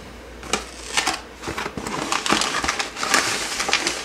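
A USPS Priority Mail envelope and the white wrapping paper inside it being handled, making irregular crinkling and crackling starting about half a second in.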